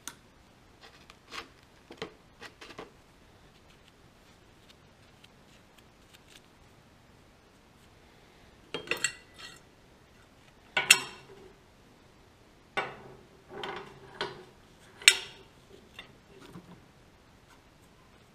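Machined metal pulley parts and a steel shaft clinking and clanking as they are handled and fitted together on a steel plate. A few light clicks come first, then about halfway through a run of sharp metal clanks, some with a short ringing tone after them.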